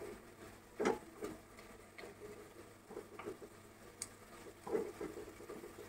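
Spatula stirring chopped tomatoes and vegetables in a pan: a few soft, irregularly spaced scrapes and taps of the spatula against the pan, the firmest about a second in.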